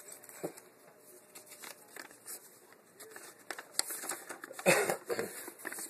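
Paper and plastic rustling and crinkling as a new thermostat's instruction booklet and bagged screws are handled and leafed through, with scattered small clicks. About three-quarters of the way in comes one short, louder burst of noise.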